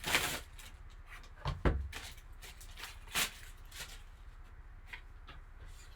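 A sealed box of trading cards being opened and handled: a rustle of packaging at the start, two knocks about a second and a half in, and another brief rustle about three seconds in.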